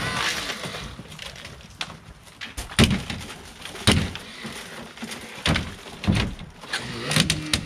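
Sharp metal bangs and cracks from vehicle extrication work on a car body, about five hard hits spread over several seconds against a noisy background.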